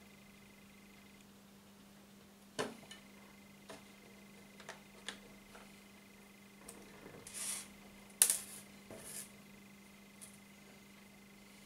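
Hands handling a small plastic bait box and fishing tackle on a wooden table: scattered light clicks and taps, a few short scraping rustles, and a sharp click about eight seconds in, the loudest sound, over a faint steady hum.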